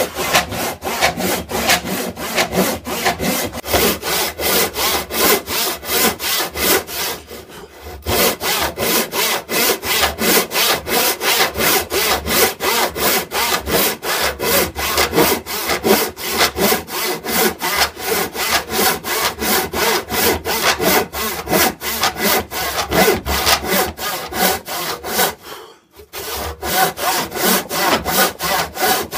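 Hand saw cutting through a wooden board in quick, even back-and-forth strokes, about three a second, pausing briefly twice.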